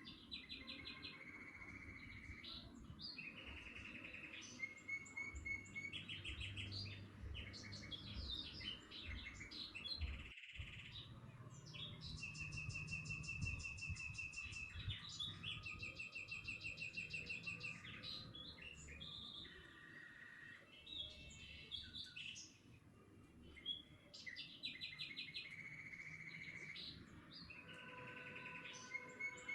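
Songbirds chirping and singing, several rapid trills and whistled notes overlapping one another, over a faint low rumble. The sound cuts out briefly about ten seconds in.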